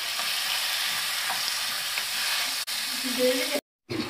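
Raw minced chicken sizzling in hot oil in a non-stick frying pan as it is stirred with a wooden spatula, a steady frying hiss. The sound cuts out for a moment near the end.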